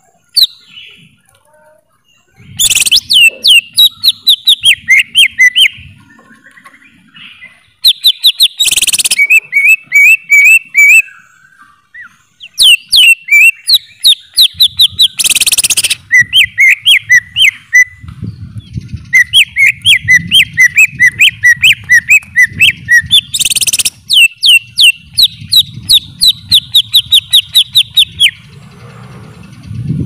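Cucak ijo (greater green leafbird) singing in fast runs of loud whistled notes that sweep down in pitch. There are five bouts with short pauses between them, broken by a few brief harsh, noisy bursts. A low background rumble comes in during the second half.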